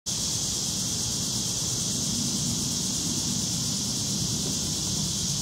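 Steady outdoor ambient noise: an even high hiss with a low rumble underneath, unchanging throughout.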